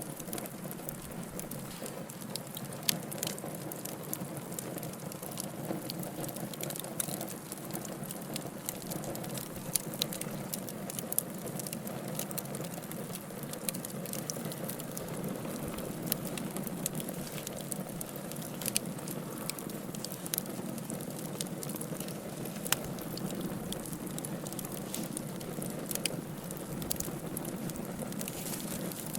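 Wood campfire burning with steady crackling and many sharp pops, a few of them louder.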